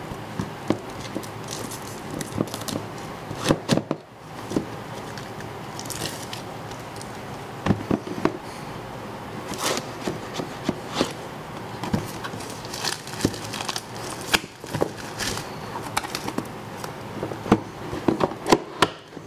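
Cardboard product box and its packaging being opened by hand: irregular crinkling, scraping and tearing, with scattered sharp clicks and knocks.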